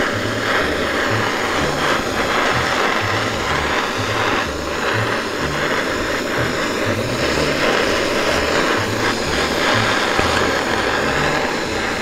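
Gas torch burning with a steady hiss while heating the steel bar being bent. Background music with a low bass line plays underneath.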